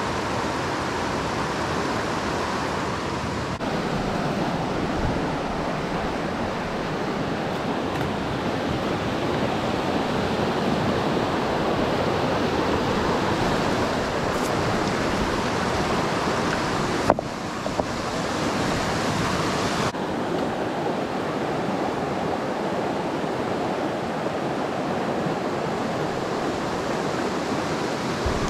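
Steady rushing of a fast mountain river running high with runoff over rocks and boulders. A single sharp click about two-thirds of the way through.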